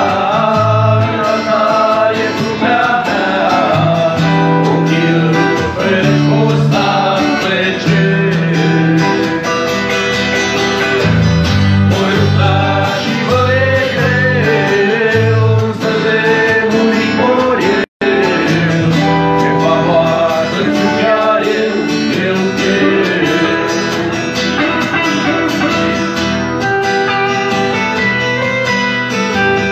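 Live acoustic guitar song: an acoustic guitar strummed with a man singing along. The sound cuts out for an instant just past halfway.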